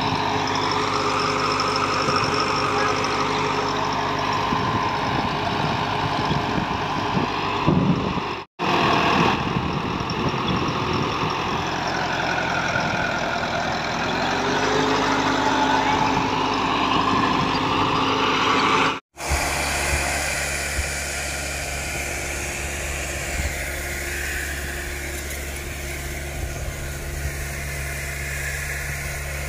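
Sonalika Tiger 75 CRDI tractor's 75 hp diesel engine running under load while working soil with its implement, its pitch rising and falling. The sound drops out briefly twice, about a third and two thirds of the way through. After the second break it runs lower and steadier.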